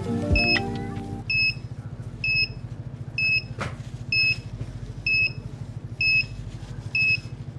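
Piezo buzzer of a water-detection alarm beeping: seven short high beeps a little under a second apart, starting about a second in, the alarm that signals water detected at the ventilator water trap's sensor. A steady low hum runs underneath.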